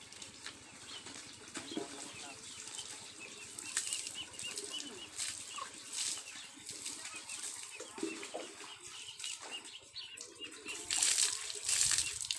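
Water splashing in several short bursts as it is poured from a bucket over a bicycle, the loudest splashes near the end.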